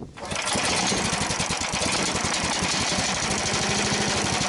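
Small single-cylinder engine of a tracked motorized towing unit (motosobaka) catching about a quarter second in and then running steadily with an even firing beat.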